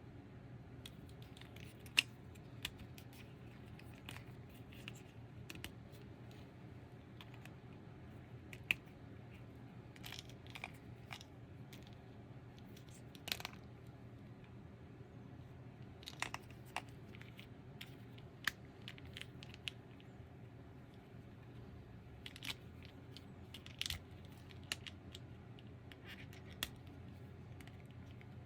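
Faint scattered clicks, taps and short rustles of hands handling toy packaging and a plastic action figure, over a low steady hum.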